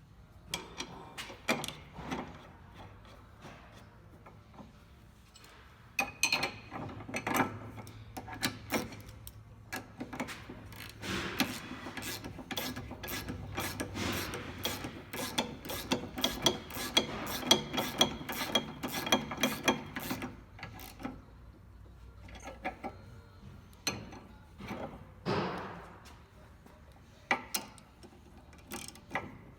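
Hand ratchet clicking as nuts and bolts are turned, in short runs with a long, steady run of rapid clicks in the middle, and scattered knocks of tools on metal.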